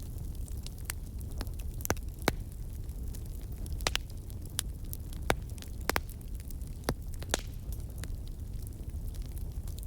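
Wood fire burning in a fireplace: a low steady rumble of the flames with irregular sharp crackles and pops, a handful of them louder than the rest.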